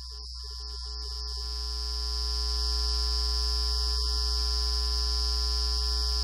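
Steady electrical hum with a high-pitched steady whine over it, growing louder over the first two seconds or so and then holding level.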